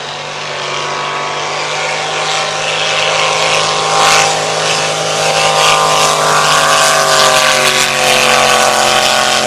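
Drag boat engine at full throttle during a run: a loud, steady engine note that grows louder, its upper tones falling in pitch near the end as the boat goes past.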